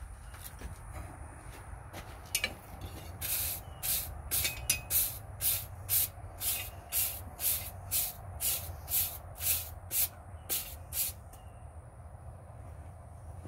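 A steel wire brush scrubbed back and forth along a twisted steel bar on the anvil, brushing off forge scale. It makes about two scratchy strokes a second, starting about three seconds in and stopping near the end.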